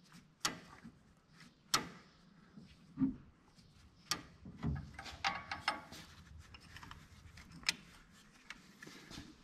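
An end wrench on a rusted water pump bolt giving about six sharp clicks and knocks at uneven gaps. The bolt is being worked back and forth to break up the rust on its threads.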